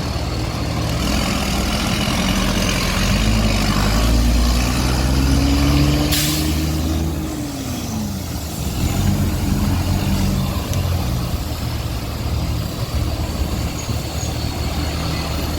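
Diesel engine of an Irizar Century coach running heavily, its pitch climbing steadily for several seconds and then falling away. A short hiss of air comes partway through.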